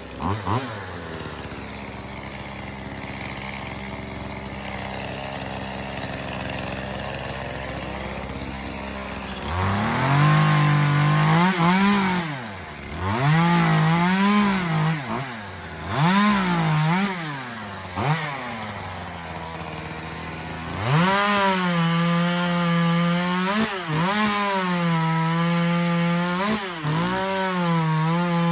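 Echo CS-2511T two-stroke top-handle chainsaw idling steadily for about nine seconds. It is then revved in several short surges, and from about 21 s it is held at high speed, its pitch dipping and recovering as it cuts through wood.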